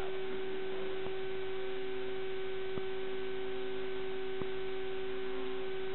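Steady electrical hum: one constant pitched tone with fainter overtones, and a few faint clicks.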